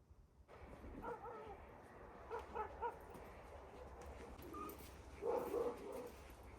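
An animal's short pitched calls in three brief bouts, over steady background noise.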